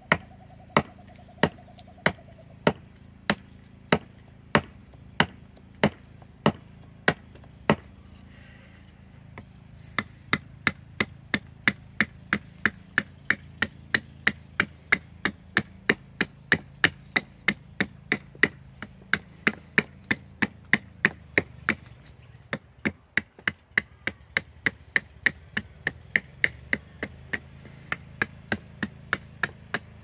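Fadir Tools small adze chopping into the bowl of a banksia wood spoon blank braced on a log stump, a sharp strike each time. The strikes come at about one and a half a second, pause briefly about a third of the way in, then resume faster, about two to three a second.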